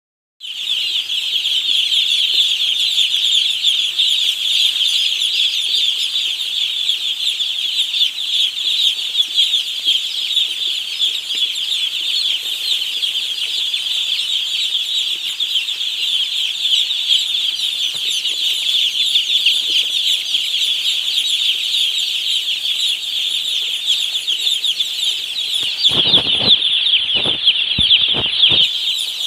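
A large flock of young poultry chicks in a farm shed, peeping together in a loud, continuous chorus of high chirps. Near the end a few dull knocks cut through.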